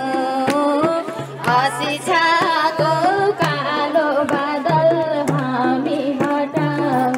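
Nepali song with singing over a steady drum beat and a repeating bass line, played through a loudspeaker.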